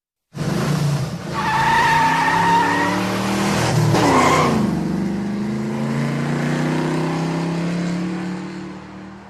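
Car accelerating hard with its tyres squealing, starting abruptly after a moment of silence. About four seconds in there is a louder squeal and a quick drop in pitch, then the engine keeps running steadily and fades near the end.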